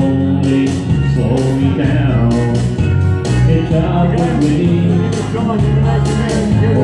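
A man singing a country song into a handheld microphone over a country backing track with a steady beat and bass line.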